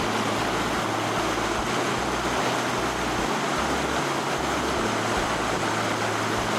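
Steady rushing of flowing water, like a fountain or small waterfall, an even unbroken hiss at a constant level.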